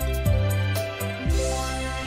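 Instrumental classical music: a run of quick notes over low bass notes, landing on a final held chord about two-thirds of the way in.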